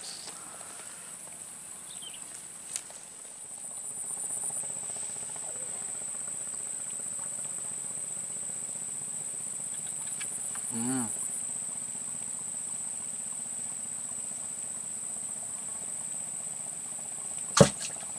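Steady high-pitched chirring of insects in the swamp vegetation, pulsing in places, with one sharp knock near the end.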